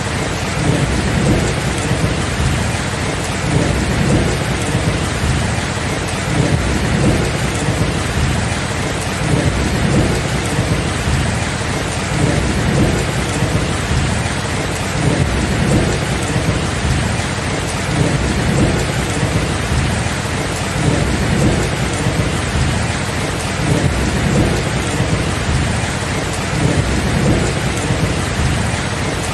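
Heavy rain falling steadily in a thunderstorm, with a low rumble of thunder that swells and fades underneath the constant hiss of the rain.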